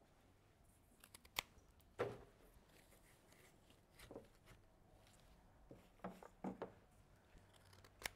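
Near silence with faint handling noises: a few soft clicks and knocks as a cut peony stem is picked up and pushed into the arrangement, the sharpest click about a second and a half in.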